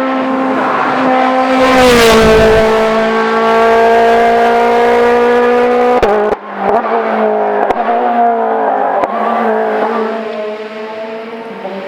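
Hillclimb race car passing close at high revs. The engine note is loudest and dips in pitch about two seconds in, then holds high. About six seconds in the note breaks off with a few sharp cracks, then picks up again and fades as the car climbs away.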